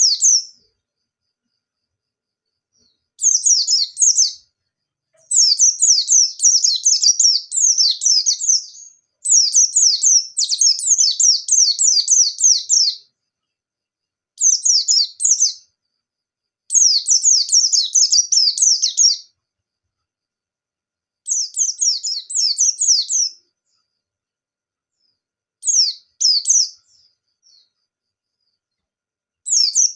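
A white-eye (pleci) singing in fast, high-pitched twittering bursts of one to four seconds with short silent pauses between them. This is the rapid 'nembak' song of a bird in full voice, the kind played as a lure to get other pleci singing.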